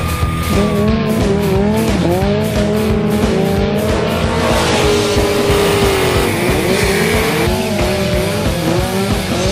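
Sport motorcycle engines revving, the pitch climbing and dropping again and again through throttle and gear changes, with tire squeal around the middle. Rock music with a steady beat plays underneath.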